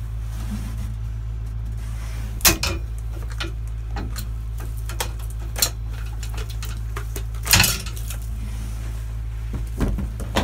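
Handling of a car's front suspension strut and coil spring: several sharp metal clanks and knocks spread out, the loudest a short clatter about three-quarters through, as the old spring comes off the strut and the new one is set on. Under them runs a steady low hum.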